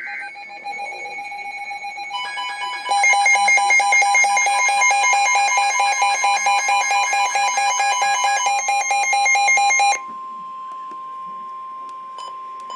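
Emergency Alert System alert tones announcing a flood warning: a steady electronic tone, joined about two seconds in by a second steady tone, then a loud, rapidly pulsing electronic alarm that cuts off abruptly near ten seconds, leaving one steady high tone sounding on.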